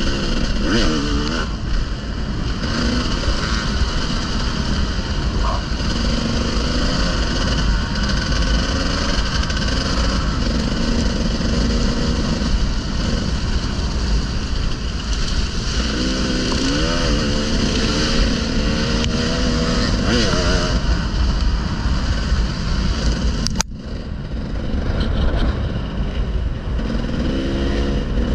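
Enduro motorcycle engine running hard on a trail ride, its pitch rising and falling repeatedly with the throttle. The sound briefly drops out a little past three quarters of the way through.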